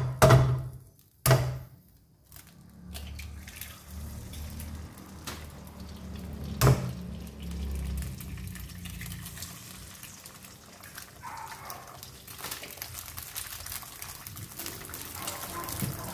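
Eggs cracked and dropped into a nonstick wok and frying in a little hot oil: a sharp crack at the start and another about six and a half seconds in, with a soft sizzle that grows louder near the end.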